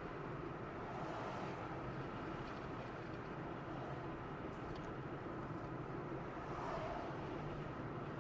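Steady road and engine noise of a car driving at cruising speed, an even rumble and hiss with no change.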